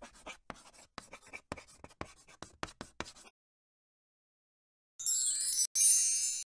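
Pen-writing sound effect: a quick run of short scratching strokes for about three seconds as the title is written. After a pause, about five seconds in, a bright, high sound effect under two seconds long is broken by a single click.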